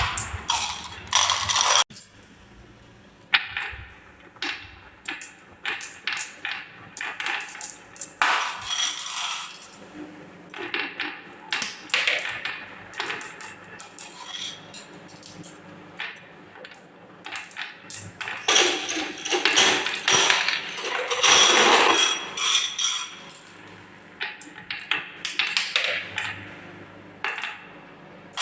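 Marbles rolling and clattering down a wooden marble run: a rapid, irregular stream of clicks and knocks, building to a dense clatter about two-thirds of the way through.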